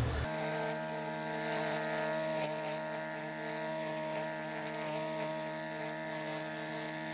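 Gas string trimmer engine running at a steady, even speed as its line head cuts through periwinkle (creeping myrtle) ground cover. It starts about a third of a second in.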